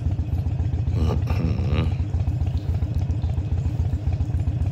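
Harley-Davidson Sportster Iron 883's air-cooled V-twin, fitted with an open air filter, running at low revs with a steady low pulsing beat as the bike creeps along a rocky dirt trail.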